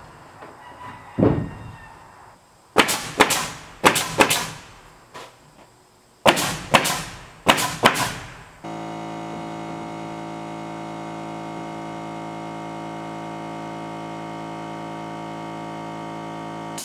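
Pneumatic DeWalt coil siding nailer firing nails into rough-sawn siding boards, in quick groups of two or three shots between about 3 and 8 seconds in. Then a steady hum with many pitches starts abruptly about 9 seconds in and holds an even level until it cuts off.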